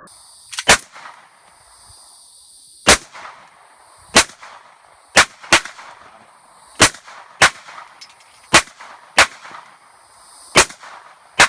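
Gunshots fired at targets, about eleven at an irregular pace, some in quick pairs a third of a second apart, each with a short ringing echo.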